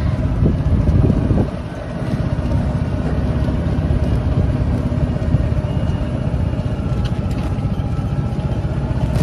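Golf cart driving along a street, heard from its back seat: a steady low rumble of motor and tyres with a faint steady hum, briefly dipping about a second and a half in.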